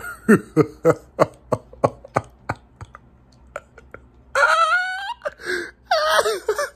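A man laughing hard: a run of about eight short bursts, roughly three a second, then two long, high, wavering wails of laughter.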